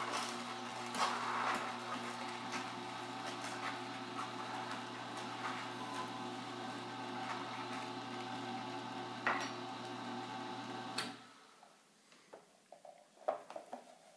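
Slow horizontal auger juicer running with a steady motor hum and crackling as it crushes green vegetables, then switched off about eleven seconds in, after which only a few faint clicks of handling remain.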